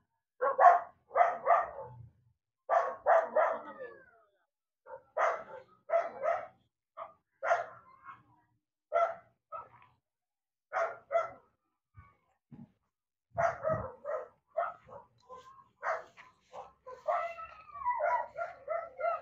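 A dog barking over and over, in short runs of two or three barks every second or two, the barking coming thicker near the end.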